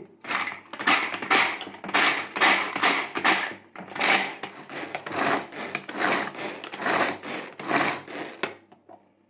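Almonds being chopped in a pull-cord manual food chopper: the cord is pulled about twice a second, each pull spinning the blades in a short noisy burst. The pulling stops about a second before the end.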